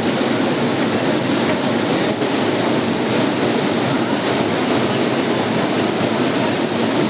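Steady, loud rushing noise with no distinct events, like fast water or wind.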